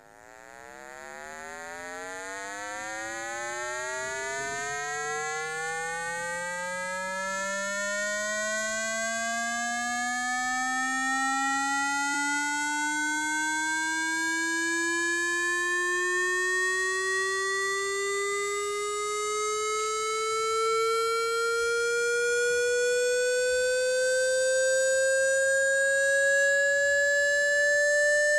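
Electronic speaker-cleaning tone: one steady pitched tone with many overtones, sliding slowly and smoothly upward in pitch and swelling in loudness over the first few seconds. It is a tone played to shake water and dust out of a phone speaker.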